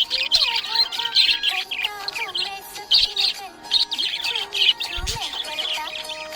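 Budgerigars chirping and warbling: a dense, rapid stream of short high chirps with wavering, gliding notes underneath.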